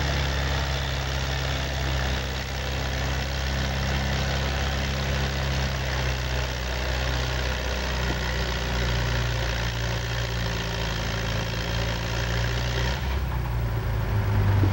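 Red Farmall antique tractor's engine running steadily while hitched to a pulling sled. Near the end the higher noise drops away and only the low engine tone carries on.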